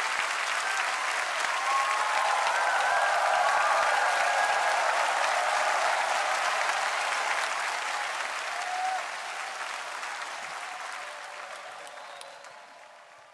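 Studio audience applauding, with a few voices calling out. The applause swells over the first few seconds, then slowly dies away toward the end.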